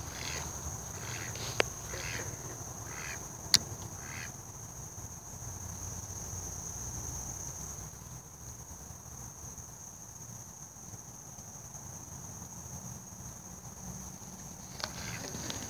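Insects shrilling in one steady high note throughout. In the first four seconds, and again near the end, a run of short calls repeats about twice a second, and a few sharp clicks stand out, the loudest about three and a half seconds in.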